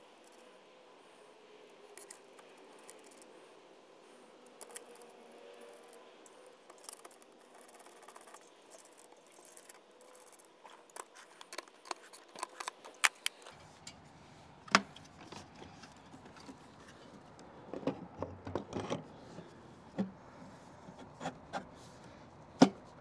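Metal mounting bracket and hardware being handled and fitted to the antenna: faint clinks and rattles. They grow into sharper clicks and knocks in the second half, the loudest knock near the end.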